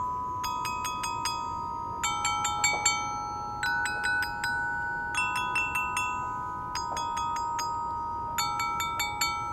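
Glockenspiel with metal bars, struck with two mallets, playing a short figure of a few quick notes that repeats about every second and a half, each note ringing on.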